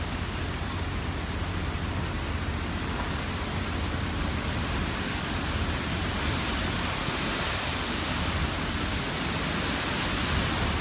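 Hurricane-force wind blowing through trees and bamboo, with driving rain: a steady, dense rushing noise with a low rumble. It grows a little louder and hissier from about halfway through.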